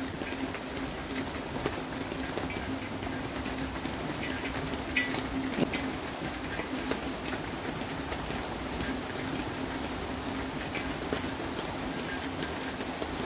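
Steady rain falling, an even hiss scattered with the ticks of single drops, with two sharper drip taps about five seconds in. A faint steady low hum runs underneath.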